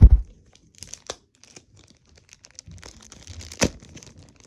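A low thump at the very start, then the crinkling and tearing of a mystery figure's packaging, with a few sharp clicks, the crinkling growing busier near the end.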